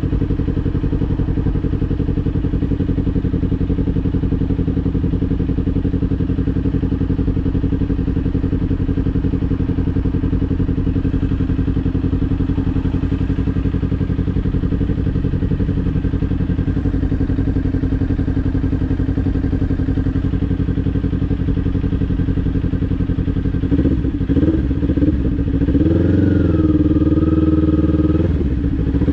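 Kawasaki Ninja 400 parallel-twin motorcycle engine running at a steady note. Near the end the engine note wavers, climbs, dips and settles higher as the revs change, and the sound gets a little louder.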